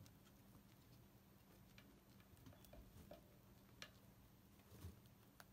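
Faint, irregular clicks and small crunches of a chinchilla gnawing an apple wood stick, a handful of separate nibbles spread over a few seconds.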